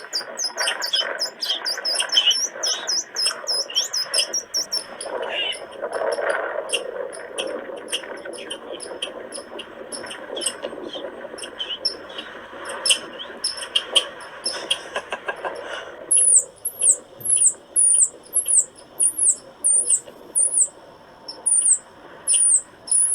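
Squirrel giving rapid, high squeaky chirps over a rough scratchy noise. About two-thirds of the way through, a steady run of sharp squeaking chirps begins, about two a second.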